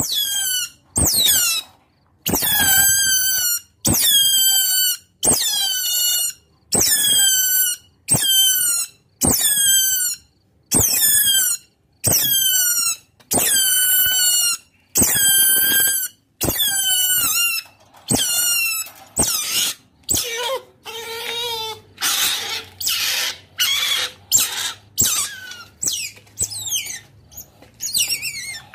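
Otter calls played as a lure: a run of high-pitched calls, each just under a second long and falling in pitch, repeated about once every second and a bit. About two-thirds of the way through they change to shorter, harsher calls coming about twice a second.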